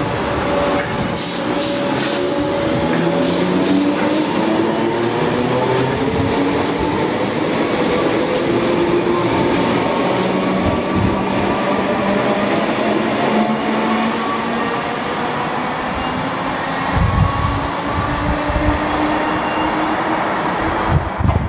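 Southern Class 377 Electrostar electric multiple unit pulling away and gathering speed. Its traction motors give a whine in several tones that slowly rises in pitch, and there are a few wheel clicks in the first few seconds. Low thumps come near the end.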